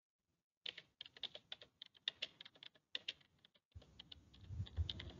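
Computer keyboard typing: a run of irregular key clicks as a line of text is typed, with a brief pause partway through. A low rumble sits under the keystrokes in the second half.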